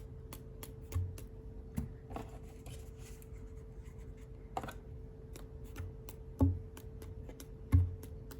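A paintbrush being tapped and flicked to spatter paint flecks onto card stock: a run of light taps and clicks, with a few louder dull thumps about a second in and again near the end. A steady faint hum sits underneath.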